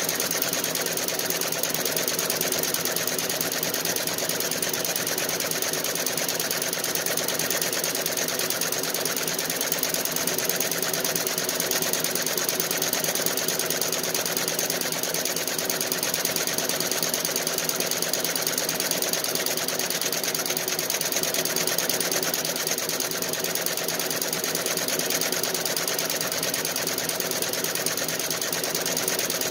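Nine-needle Feiyue commercial embroidery machine running steadily, its needle bar stitching at a fast, even rate.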